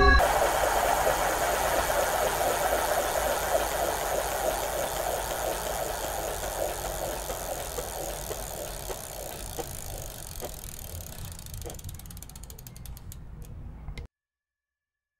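A dense crackling, rattling noise texture that fades steadily and then cuts off suddenly about fourteen seconds in.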